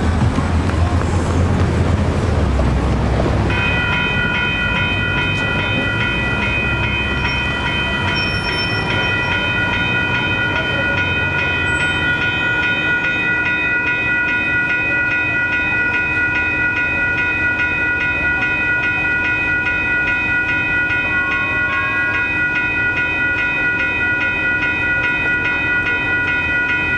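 Blue Line light-rail train rumbling past a road crossing, then, about three and a half seconds in, a grade-crossing warning bell starts ringing steadily and keeps ringing while the gates are down.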